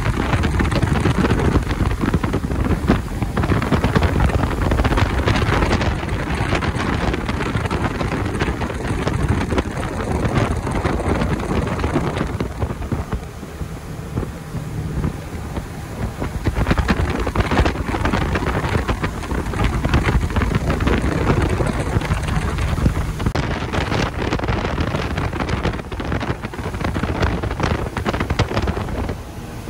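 Wind buffeting the microphone aboard a moving boat, over the steady noise of the boat running through the water.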